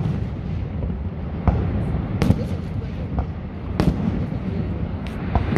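Aerial fireworks shells bursting overhead: a series of sharp booms, about five in a few seconds, with a steady low rumble between them.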